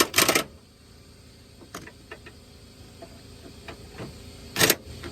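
Impact wrench fired in two short bursts on its lowest setting to snug the motor mount bolts, one at the very start and one near the end, with a few light clicks of socket and tool handling in between.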